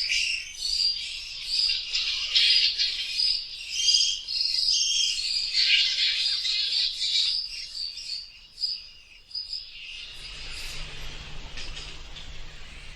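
Many bats squeaking and chittering in a dense, high-pitched chorus that thins out and fades about nine seconds in, leaving a faint hiss with a low hum.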